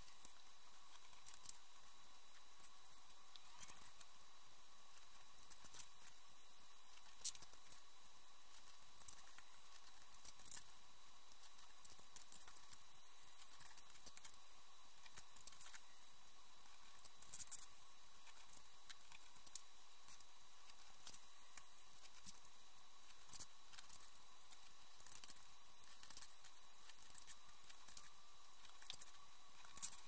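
Scattered light clicks and taps of small round typewriter-key letter discs being shifted and set down on cardboard, with a pen tracing around them; the loudest cluster of taps comes a little past halfway.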